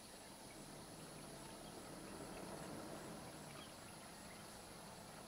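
Faint outdoor ambience: a steady high-pitched insect drone over a soft hiss, with a slightly louder low rustle about two seconds in.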